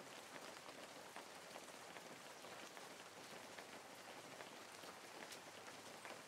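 Faint steady rain: an even hiss dotted with many small drop ticks.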